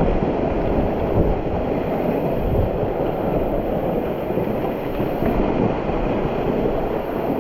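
Steady rushing roar of a waterfall, loud and even throughout, with a fluttering low rumble underneath.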